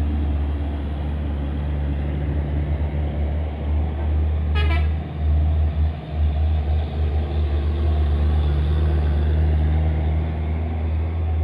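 Heavy diesel cargo trucks running past with a steady low engine rumble, and a short horn toot about four and a half seconds in.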